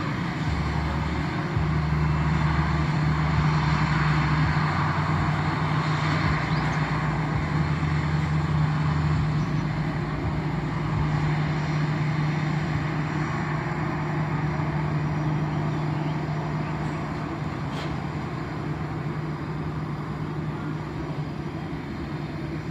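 Airliner engines running with a steady low hum and a broad rush, loudest a few seconds in and then slowly fading.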